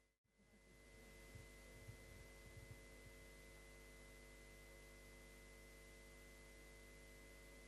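Near silence: steady electrical hum and hiss of the recording, cutting out briefly just after the start, with a few faint low thumps in the first few seconds.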